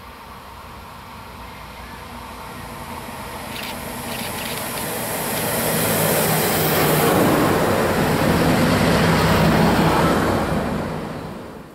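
A DB class 642 Desiro diesel multiple unit approaching and passing close by. Its engine drone and the clatter of wheels on rail build up to a peak and then fall away near the end.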